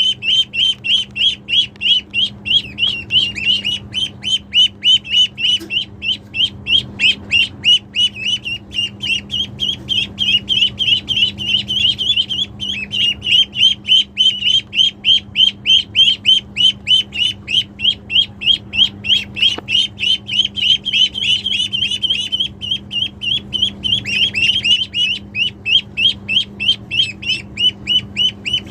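Ducklings peeping, a continuous chorus of short, high calls at about three to four a second.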